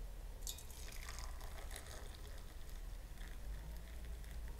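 Turkish coffee poured in two thin streams from metal cezves into a double-walled glass cup, a soft splashing trickle starting about half a second in. A low steady hum lies beneath it.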